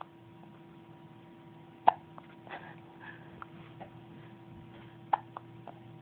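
Hiccups: two short, sharp hiccups about three seconds apart, the first about two seconds in and the second near five seconds, over a faint steady hum.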